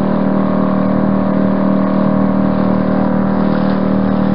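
Outboard motor running steadily at cruising speed, heard from aboard the moving boat: an even engine note with a strong low hum that does not change.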